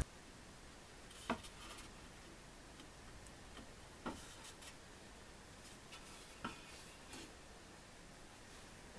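Near-silent room tone with three faint, brief knocks, spaced about two and a half seconds apart.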